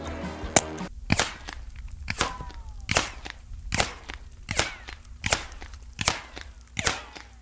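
.22 LR bullets striking a concrete wall, about eight sharp cracks at a steady pace of roughly one every 0.8 s. Several are followed by a short falling whine as the intact bullet ricochets off the concrete.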